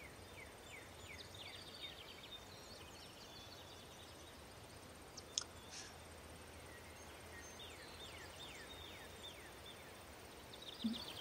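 Faint outdoor ambience: small birds chirping in runs of short, falling notes, with a single sharp click about five seconds in.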